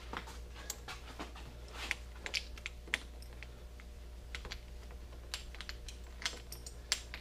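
Irregular light clicks and taps from hand tools working a bicycle seat clamp: an Allen wrench turning and knocking against the clamp bolts under the saddle.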